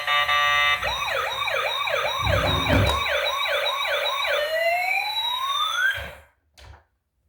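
Electronic toy siren: a fast rising-and-falling yelp repeated about eight times, then one long slow sweep, cutting off suddenly. It opens with the tail of a buzzy multi-tone chord, and there is a low thump about two and a half seconds in.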